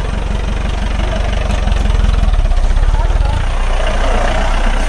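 Mahindra jeep's engine running at idle in gear with no throttle while the jeep creeps forward up a dirt slope. The engine note swells in the middle and drops back about three and a half seconds in.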